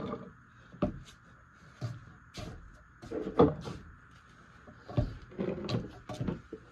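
Scattered light knocks and clatter of dishes and things being handled on a wooden table, a few sharper knocks about three and five seconds in, over a steady high-pitched background drone.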